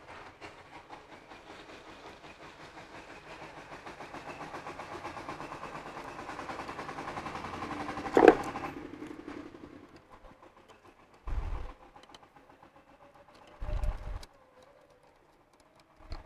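A vehicle engine passing close by: a rapid, even pulsing that grows louder for about eight seconds, gives one sharp click at its loudest, then fades away. Two dull low thumps follow a few seconds apart.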